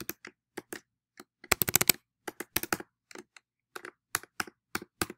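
Computer keyboard keystrokes as a password is typed: uneven clicking key presses, with a quick run of strokes about a second and a half in.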